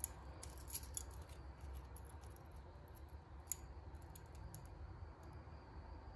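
Faint, scattered metallic clinks of a metal keychain's chain and enamel charms knocking together as it is turned in the hand, over a low steady room hum.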